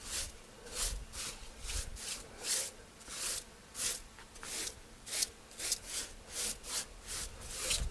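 Brisk rubbing strokes over a freshly sawn red oak beam, repeating about twice a second.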